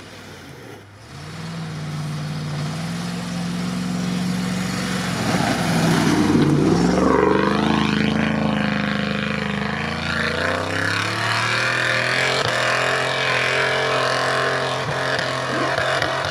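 Range Rover's V8 engine revving hard under load as it climbs through deep snow with its wheels spinning. The engine note climbs about a second in, then rises and falls repeatedly, loudest a few seconds in.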